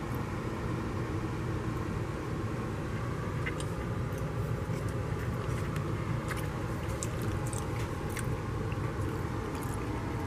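Steady low background rumble with scattered faint crackles and clicks as a serrated knife cuts through a crisp, cheese-topped tuna wrap on aluminium foil.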